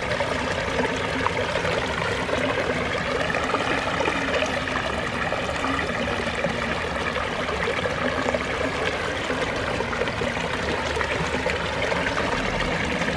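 Small pondless waterfall running: water spilling steadily over the stones into the hidden basin, a constant splashing trickle.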